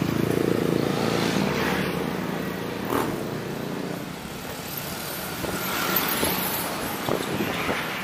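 Road traffic passing: a motor vehicle's engine hum fades away over the first two seconds or so, and another vehicle swells up and passes about six seconds in.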